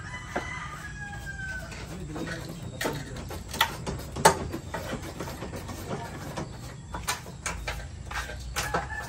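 A rooster crowing: one crow in the first two seconds and another starting near the end. Between them come sharp knocks and clatter, the loudest about four seconds in.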